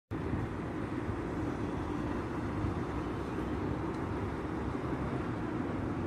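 Steady low rumble of street traffic.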